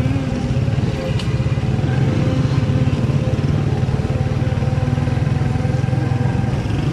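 A small motorcycle engine running steadily close by, a fast even throb, over general road traffic.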